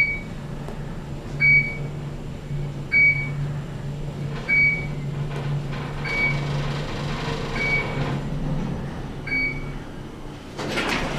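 Fujitec elevator car sounding seven short, high electronic beeps about every one and a half seconds, over a steady low hum.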